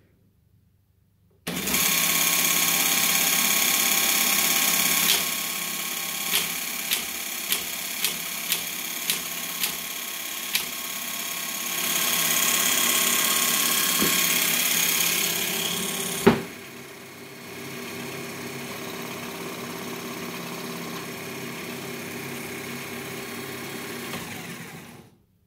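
1978 SEL Lo2000 teletype running and punching paper tape: a steady mechanical whir with a run of sharp clacks about twice a second in the middle, then one heavy clunk, after which it runs more quietly until it stops near the end.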